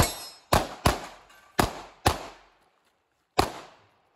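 Six 9mm pistol shots from a compensated Glock 43X, fired at an uneven pace: three in quick succession, then a pair, then one more a little over a second later. Each shot is a sharp crack with a short ringing decay.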